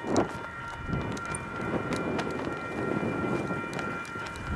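Union Pacific diesel locomotive rumbling as it pulls a westbound double-stack train toward the listener, getting under way after waiting. Several steady high tones ring over the rumble, with scattered sharp clicks.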